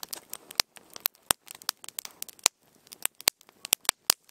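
Freshly lit campfire of split kindling crackling, with irregular sharp pops several times a second.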